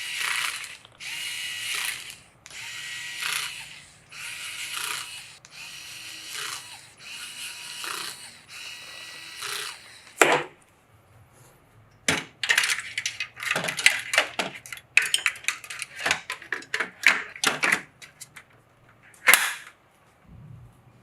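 A screwdriver driving screws in a series of short runs, each about a second long, getting fainter toward the tenth second. Then come many sharp clicks and taps of hardware being handled and fitted.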